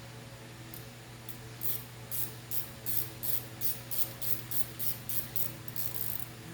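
A hand ratchet is worked in quick back-and-forth swings, each swing giving a short high rasp of clicks. The rasps come about three a second, about fifteen in all, over a steady low hum.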